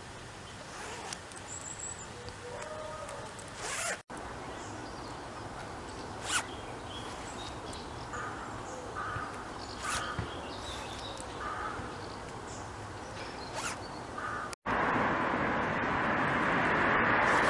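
Zips on cotton hoodies being pulled up and down by hand: several short, sharp rasps spread through the first two thirds. After a cut near the end, a louder steady rushing background takes over.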